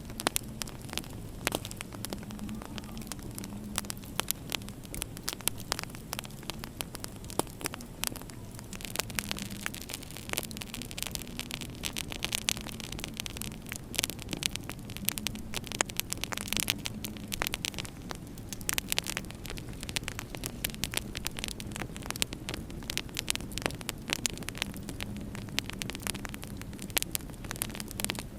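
Wood fire crackling in a fireplace: dense, irregular sharp pops and snaps over a steady low hum.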